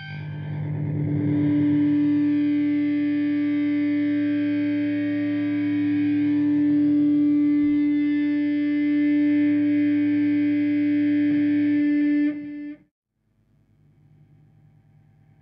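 Loud sustained droning tone: one steady held pitch over a lower hum, played as the 'deep and subtle tones' of a mock hypnotic hiccup cure. It cuts off suddenly about 13 seconds in, leaving only a much fainter tone.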